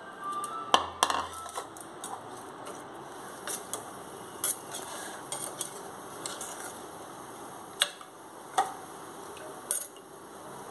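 Steel ladle stirring soaked basmati rice into mutton stock in a pressure cooker pot. It sloshes through the liquid and clinks sharply against the metal pot about eight times.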